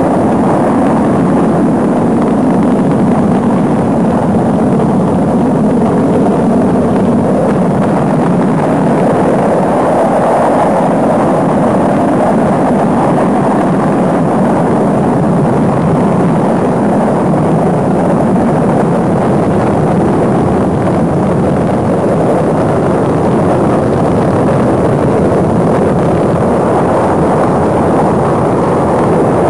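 Rocket engines firing at liftoff: a loud, steady, dense rumble that holds at the same level without letting up.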